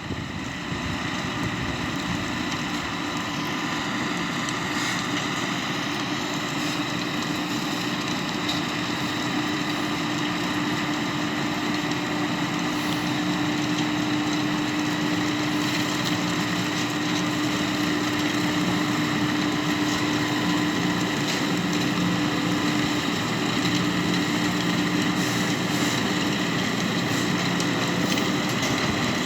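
New Holland T6 tractor engine running steadily at a constant pitch, growing slightly louder over the stretch.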